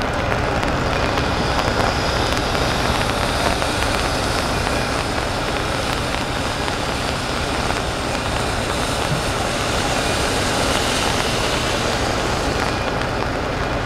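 Steady rushing hiss of steam venting from the standing steam locomotive Frisco 1630, with wind rumbling on the microphone.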